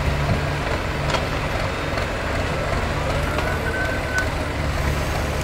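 Wheeled excavator's diesel engine running steadily as it digs and lifts a bucket of wet sludge, with a whine that rises about halfway through and holds briefly before stopping, and a few light knocks.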